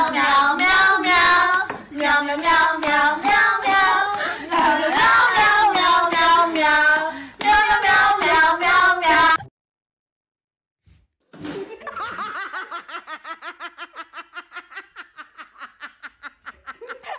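Voices singing a song for about nine seconds. After a short silence comes a fast run of short pitched voice-like pulses, about six a second, growing fainter.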